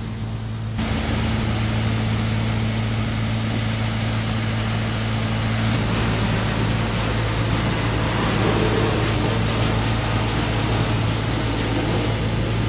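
Street traffic noise over a steady low machine hum; the traffic noise swells suddenly about a second in and again about six seconds in.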